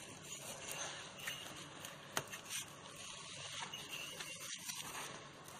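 Faint rubbing of a pull-start rope being wound by hand around the starter pulley of a Villiers Mk 10 engine, with a few light clicks about two seconds in.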